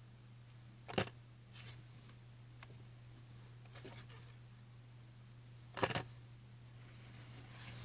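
A dime dropping into a homemade cardboard coin mechanism: two sharp clicks about five seconds apart, with soft rustling of the cardboard being handled in between, over a steady low hum.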